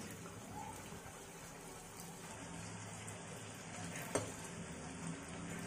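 Urad dal vadas deep-frying in hot oil: a steady sizzle, with a single light tap about four seconds in.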